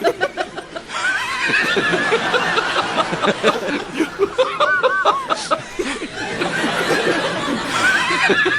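A crowd of people laughing together, many voices overlapping in chuckles and snickers, swelling about a second in, with high-pitched laughs standing out midway and again near the end.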